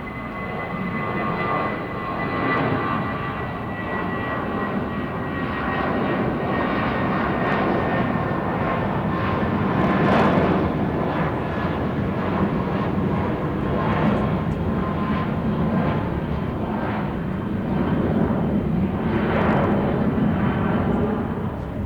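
Jet airliner taking off at full thrust: a continuous loud jet engine noise, with a faint high whine that fades in the first few seconds.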